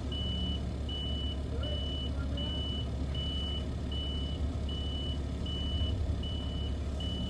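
Reversing alarm on heavy equipment beeping steadily, about one beep every three-quarters of a second, over the low steady rumble of an engine running.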